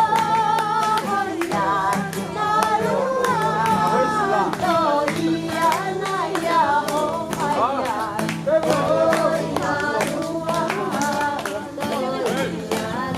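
Singing with guitar accompaniment over a steady beat.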